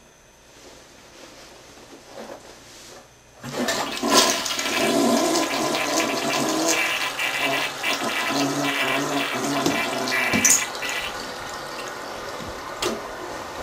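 Toilet flushing. A sudden rush of water starts about three seconds in and runs for about seven seconds, then drops to a quieter, steady running of water.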